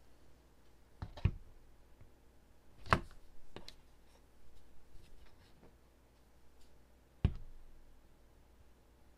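RK Royal Kludge RK925 foldable mechanical keyboard being handled: a few separate sharp clicks and knocks, the loudest about three seconds in and near seven seconds, with fainter clicks between.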